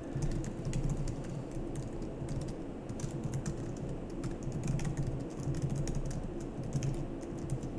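Typing on a computer keyboard: an irregular run of quick key clicks as a line of code is entered.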